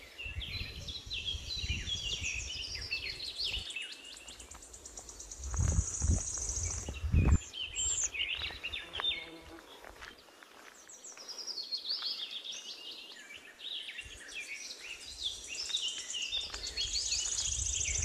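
A songbird singing two bouts of quick chirping phrases that step down in pitch, one near the start and one about twelve seconds in, with a few low thumps around the middle.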